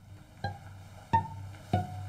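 Background music: single plucked notes, about one every 0.6 seconds, over a low sustained bass tone.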